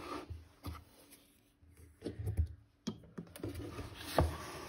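Craft supplies, such as rolls of washi tape, being rummaged through by hand: scattered light clicks and knocks, the loudest about four seconds in.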